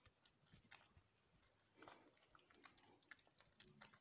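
Near silence with faint, scattered wet squelches and clicks of soapy hands rubbing together, lathering between the fingers.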